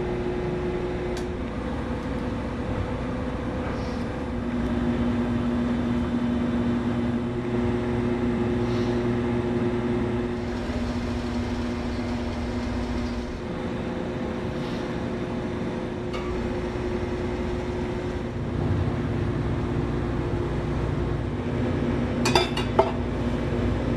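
Steady mechanical hum and low rumble with a few held tones that come and go, and a short clatter of light clinks near the end.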